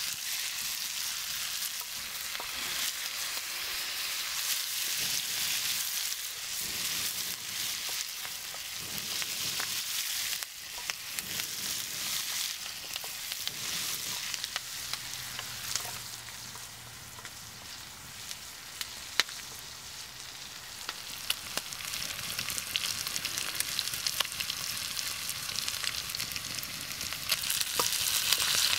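Diced bacon and onion sizzling steadily in a hot frying pan, stirred now and then with a wooden spatula that scrapes and taps against the pan.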